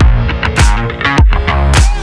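Background music with a steady beat: a strong hit about every half-second under sustained tones.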